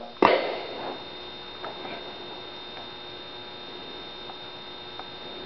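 A steady low hum, with one short knock about a quarter second in. The syrup pouring into the steel test cup makes no clear sound of its own.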